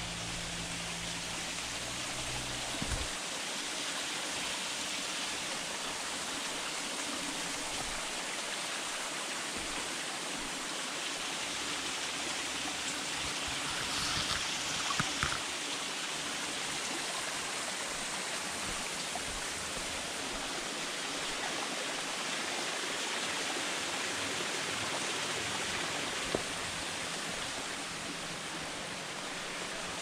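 Small creek splashing down a series of little cascades over mossy rocks: a steady rushing of water, swelling briefly about halfway through, with a few faint knocks.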